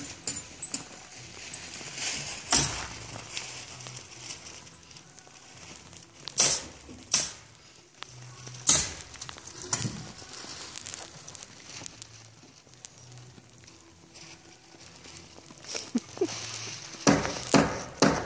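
Footsteps crunching in snow, uneven and intermittent, with a few sharper, louder crunches, the loudest cluster near the end.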